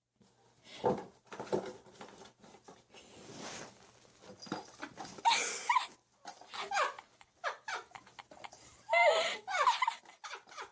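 A cat scuffling with a small box on carpet, making repeated rustles and light knocks. There are two short bursts of wavering cat cries, about five seconds and about nine seconds in.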